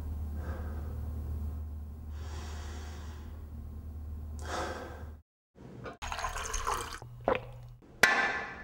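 A person breathing heavily in three deep breaths over a steady low hum. After abrupt cuts come short noisy sounds, ending in a sudden gush of tap water into a drinking glass that fades out.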